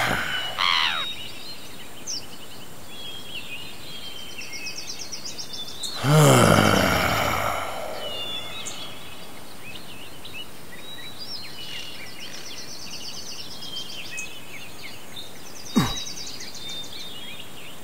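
Birds chirping and tweeting steadily as background ambience. About six seconds in, a loud breathy sound with a falling pitch lasts about two seconds. Near the end comes a short sharp sound that also falls in pitch.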